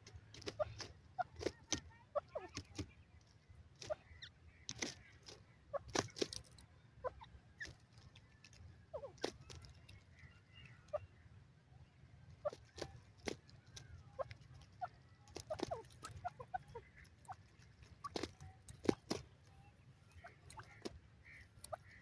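Grey francolin giving soft, short clucking notes at irregular intervals, mixed with sharp clicks, rather than its loud repeated 'ka-tee-tar' call.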